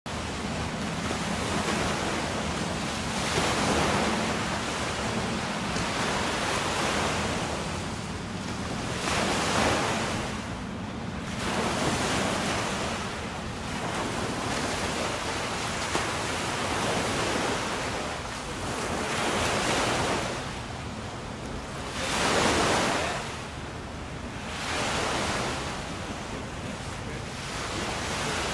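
Lake waves washing in, the steady wash swelling every two to four seconds as each wave arrives, with some wind.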